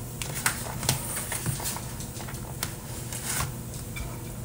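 Light, scattered clicks and taps of a measuring cup tipping cooked rice into glass meal-prep containers, with the rice pattering as it lands. A steady low hum lies underneath.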